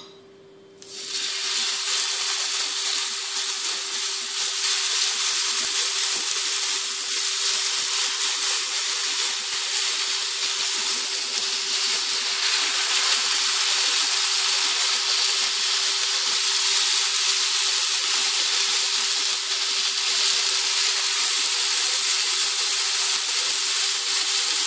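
Marinated lamb skewers sizzling on a hot Tefal electric plancha griddle, the frying hiss starting about a second in as the first skewers touch the plate and then running steadily.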